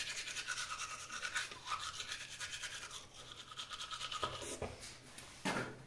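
Electric toothbrush running in the mouth, its head scrubbing across the teeth with a fine rapid rattle, quieter for the last couple of seconds.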